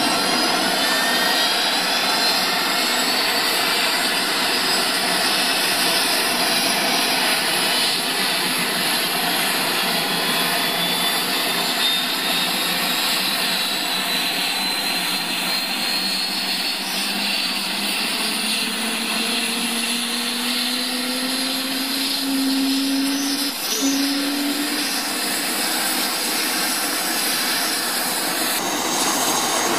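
Eurocopter AS350 Écureuil helicopter's turbine engine running up on the pad: a steady loud rushing hiss with a high whine rising in pitch in the first few seconds. A lower tone climbs steadily from about twenty seconds in as the rotor gathers speed.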